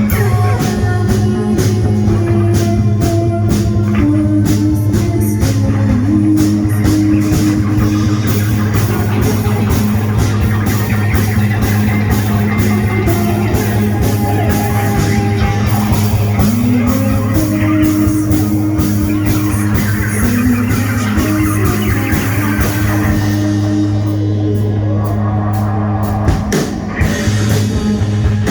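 Live rock band playing an instrumental passage: guitar lines over a held low bass note, with drums and steady cymbal hits. The playing thins out briefly near the end.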